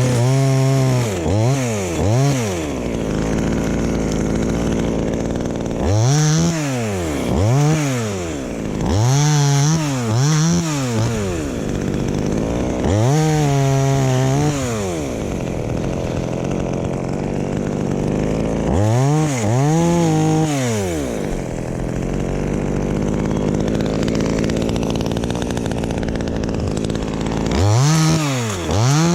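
Two-stroke chainsaw repeatedly revved in short throttle bursts, its pitch rising and falling each time, idling between the bursts; one burst a little past the middle is held longer at high revs.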